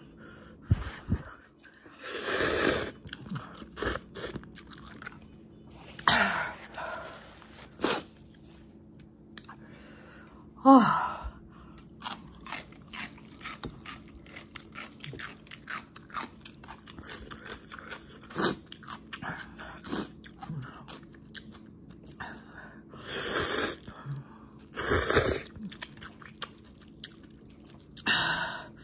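Someone eating soupless spicy instant noodles with chopsticks: several loud slurps of up to a second each, with wet chewing and lip-smacking clicks between them. The loudest slurp, about eleven seconds in, slides down in pitch.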